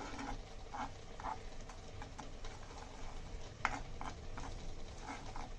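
A utensil stirring melting sugar in a nonstick pan, with light scrapes and taps against the pan at irregular intervals and one sharper click a little past halfway.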